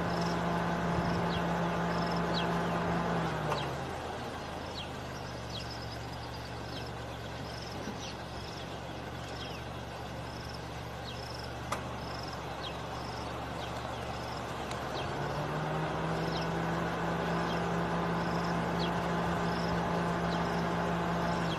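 A vehicle engine idling steadily. Its hum drops lower a few seconds in and comes back up near the end. Over it, a bird gives a short high call over and over, a little more than once a second.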